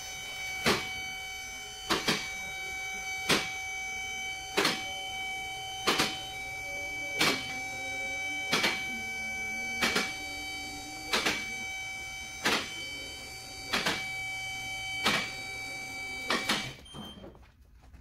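Scissor-type vehicle lift raising an SUV: its electric hydraulic pump motor runs with a steady whine while the lift's safety latches click regularly, about every 1.3 seconds, as it climbs. The motor and the clicking stop together near the end.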